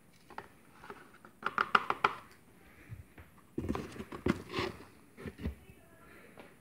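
Plastic clicks and knocks from hands handling the detergent drawer of a Miele W Classic front-loading washing machine: a quick run of sharp clicks about a second and a half in, then heavier knocks a couple of seconds later.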